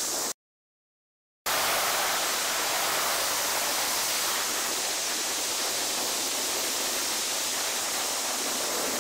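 Istobal M'Nex 25 rollover car wash running: a steady rushing hiss of water spray, first from the underbody chassis wash, then from the brush wash with its rotating foam brushes. About a third of a second in, the sound cuts to dead silence for about a second before the hiss returns.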